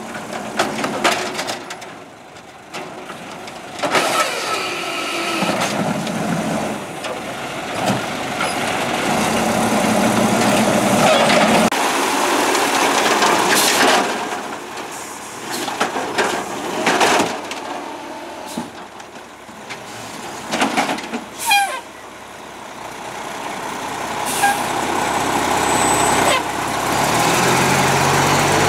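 Automated side-loading garbage trucks emptying wheeled carts: the diesel engine runs up to drive the hydraulic lift arm, with repeated bangs and knocks as carts are lifted, shaken and set down. Near the end the level rises as a truck moves off close by.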